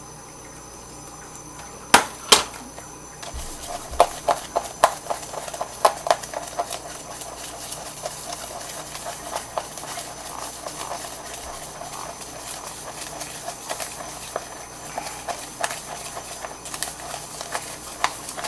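Kitchen utensils and containers being handled on a counter: two sharp clicks about two seconds in, then a long run of irregular taps, clicks and short scrapes.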